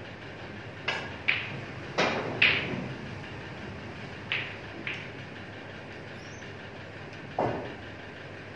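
Snooker balls clicking: the cue tip strikes the cue ball and the balls knock together. There are about six sharp clicks, roughly in pairs, then a duller knock near the end.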